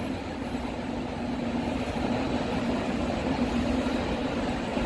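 Steady hum and rush of large ventilation fans running, with a faint steady tone underneath.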